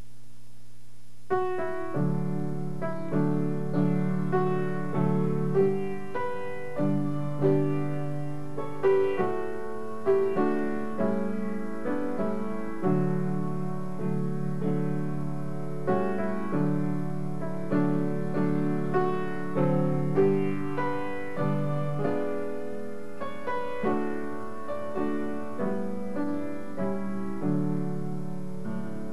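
Slow solo piano music, notes and chords struck about once a second, each ringing and fading, starting about a second in.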